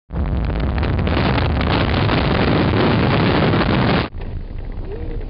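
Heavy wind buffeting the microphone over a low rumble, as from a moving vehicle. It cuts off abruptly about four seconds in, giving way to a quieter steady rumble.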